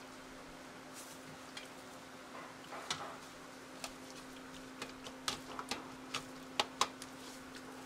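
A metal ladle and spatula clinking and scraping against a stainless steel colander bowl as braised pork is scooped out. The light, irregular taps come thicker in the second half, over a steady low hum.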